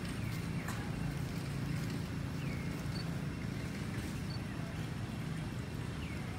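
Outdoor background of a steady low rumble, with a few faint falling chirps and two brief high pips.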